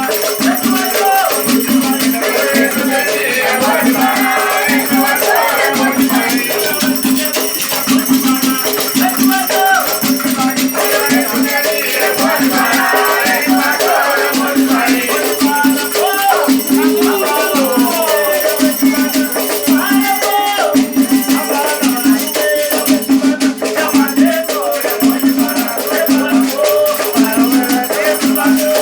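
Afro-Brazilian Batuque religious music: a shaker rattles in a steady, pulsing rhythm while voices sing.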